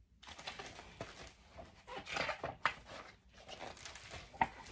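Soft rustling and handling noise of a picture book being moved and its page turned, with scattered light ticks and crinkles.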